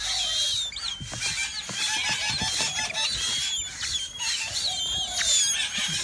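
Birds calling: many short, high, wavering chirps and squeals overlapping, with a few soft knocks.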